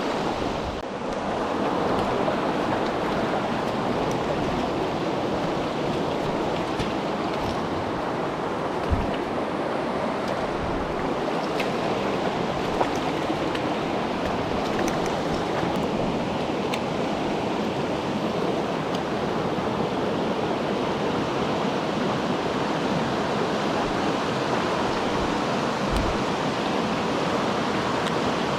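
Steady rush of a mountain stream's flowing water, with a couple of faint low knocks.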